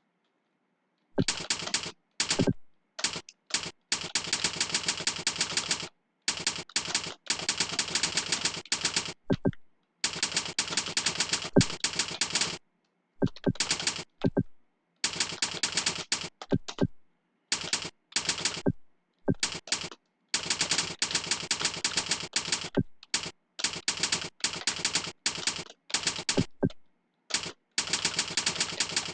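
Fast typing on a computer keyboard: rapid runs of key clicks in bursts of a few seconds, broken by short pauses.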